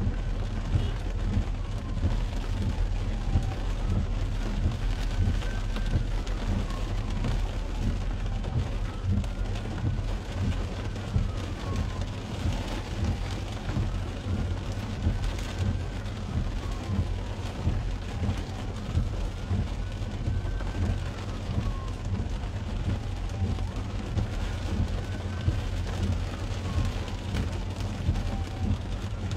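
Rain pattering on a car's windshield and roof, heard from inside the cabin, over a low steady hum. About every five seconds the windshield wipers sweep with a whine that rises and then falls.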